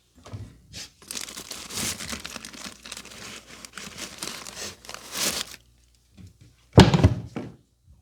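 Hands rubbing and working the hair and scalp close to the microphone: a dense crackling for about four and a half seconds. Near the end comes a single loud thump.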